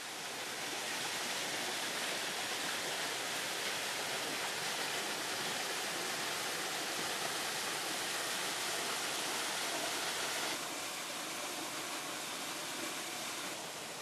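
Small waterfall pouring into a rock pool: a steady rushing of falling water, a little quieter from about ten and a half seconds in.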